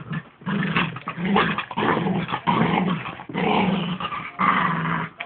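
Dachshund growling in a string of short, rough bouts during rough play and tug-of-war: play growling, not real aggression.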